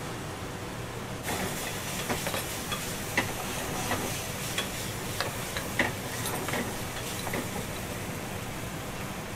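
Light clinks of glass and crockery as a drink glass and small dishes are handled on a serving tray, about a dozen short taps over several seconds. Underneath are a steady kitchen hum and a hiss that comes in about a second in.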